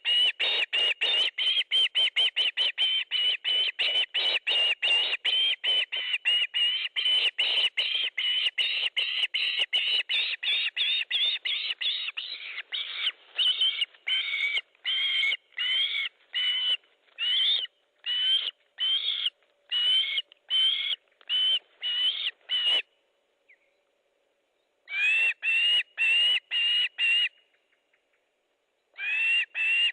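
Osprey calling: a long series of short, high whistled notes, each rising slightly, about three or four a second. After about twelve seconds the notes slow to one or two a second, with two brief pauses near the end.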